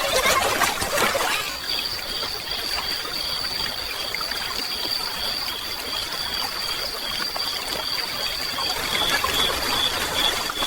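Steady rain ambience with water trickling and dripping, a little louder in the first second or so. From about a second and a half in, two thin high tones sound over the rain, one steady and one pulsing.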